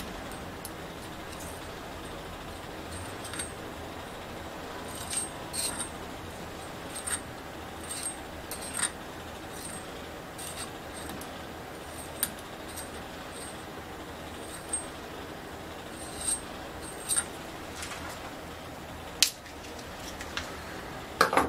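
Razor-blade scraper scraping old grip residue off a metal bicycle handlebar in short, irregular strokes, heard as scattered light scrapes and clicks, with a sharper click near the end.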